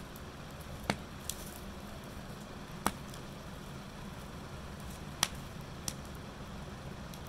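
Wood fire burning in a chiminea, giving five sharp pops from the burning logs over a steady low rumble.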